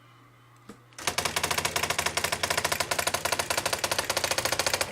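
Brother EM411 electronic typewriter printing stored text from its memory on its own: a rapid, even run of daisy-wheel strikes that starts about a second in and keeps going.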